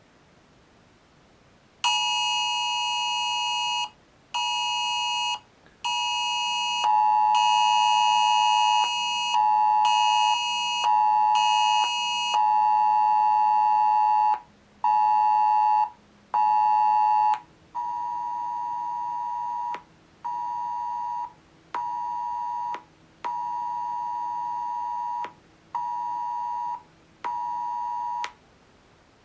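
UK Emergency Alert test tone sounding from smartphones: a loud, harsh two-tone alarm pulsing in a long-short-short rhythm. Three phones go off one after another, each for about ten seconds, the first two overlapping and the last one quieter.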